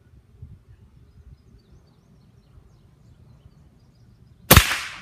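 Shin Sung Career II 707 .22 calibre PCP air rifle firing a single shot near the end, a loud sharp crack with a short fading tail. The rifle is on its highest power setting, and the pellet clocks about 1,296 feet per second.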